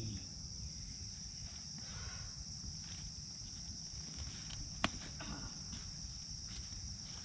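Steady high-pitched chorus of forest insects, with faint rustling and scraping as a rotten wooden stump is wrenched back and forth in wet ground. A single sharp snap comes about five seconds in.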